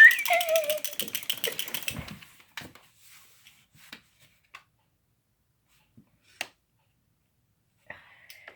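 Wind-up chattering teeth toy clattering with rapid clockwork clicks, about ten a second, which stop about two seconds in. A short high whine falling in pitch comes right at the start, and a few scattered clicks and knocks follow the clattering.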